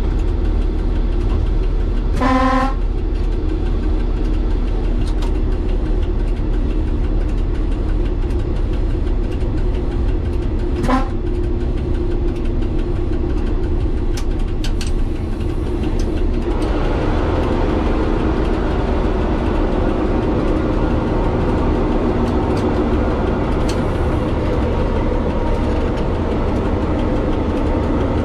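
MVTV-2 overhead-line maintenance railcar's diesel engine running steadily, with a short horn toot about two seconds in and a briefer one around eleven seconds. From about sixteen seconds the running noise grows fuller.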